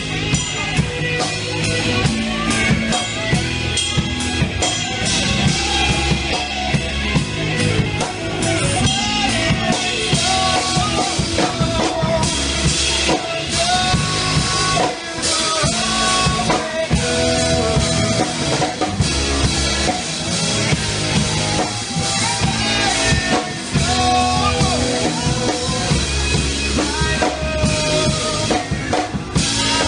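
Band music without singing: a rock drum kit, with bass drum and snare, keeps a steady beat under sustained melodic instrument lines.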